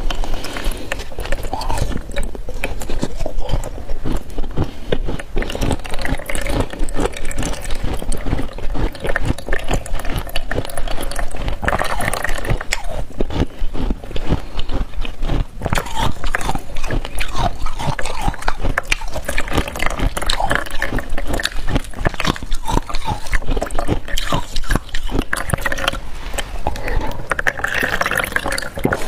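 Hard ice and freezer frost being bitten and chewed close to a clip-on microphone: dense, rapid crunching and crackling.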